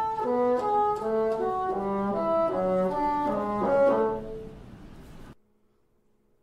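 Solo bassoon playing a quick passage of short, separate notes that stops about four seconds in and dies away in the room's reverberation. Just past five seconds the sound cuts off suddenly to near silence.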